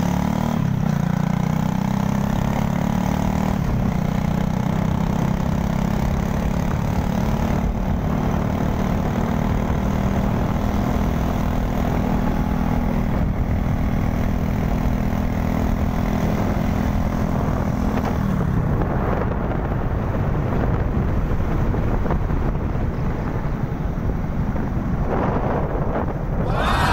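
Small motorcycle engine running steadily while riding, over wind and road noise. About eighteen seconds in the engine note falls away as it slows, and near the end it climbs again.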